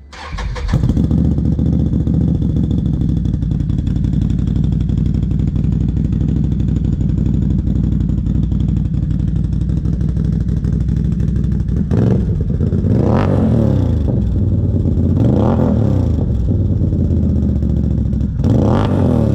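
Can-Am Renegade 1000 quad's V-twin engine fitted with an aftermarket Bomber series exhaust. It starts up right at the beginning and idles steadily, then is blipped several times, with four quick revs up and back down in the last third.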